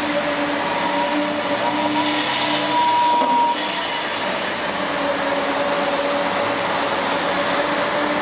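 Diesel engines of heavy construction machinery, an excavator and a dump truck, running steadily with a continuous hum. A higher steady tone grows louder a couple of seconds in and stops about three and a half seconds in.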